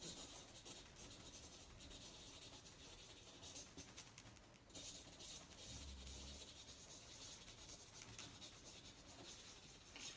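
Felt-tip marker scratching faintly across flip-chart paper in handwriting strokes, with a short pause about four and a half seconds in.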